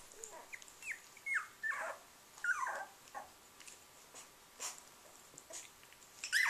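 Three-week-old puppies squeaking and whimpering as they mouth and wrestle each other: a string of short high cries that fall in pitch, bunched in the first three seconds, with another one near the end.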